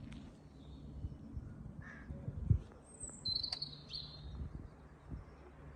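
Birds chirping in short high calls, clearest about three seconds in, over a steady low outdoor rumble, with a single sharp knock about two and a half seconds in.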